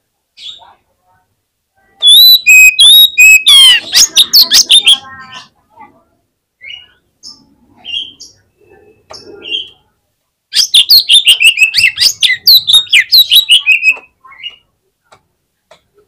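Oriental magpie-robin (kacer) singing an aggressive 'fighter' song, used to provoke other kacer. Loud runs of rapid whistled, gliding and scratchy notes begin about two seconds in and again about ten and a half seconds in, with scattered single calls between.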